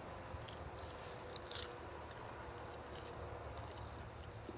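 Quiet chewing of raw hot peppers, with soft mouth clicks and one crisp crunch about one and a half seconds in.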